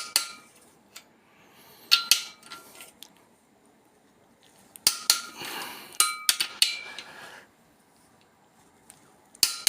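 Torque wrench and socket on the engine's main cap girdle bolts, tightening them to 85 Nm: a handful of sharp metallic clicks and clinks spaced a second or more apart, some with a brief ring.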